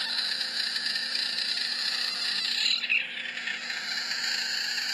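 A frog's distress scream: one long, steady, high-pitched crying sound that does not let up.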